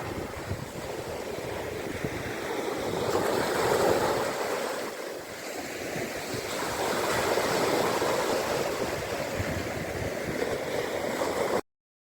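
Mediterranean Sea waves washing onto the shore, the rush of surf swelling twice, with some wind rumble on the microphone. The sound cuts off suddenly near the end.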